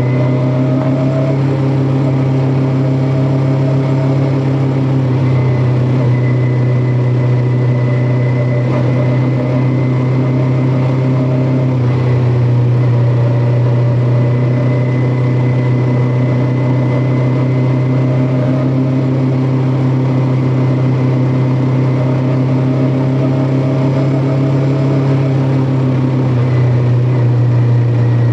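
Kawasaki Ninja 400's parallel-twin engine running steadily under way, its pitch easing down and back up slightly a few times.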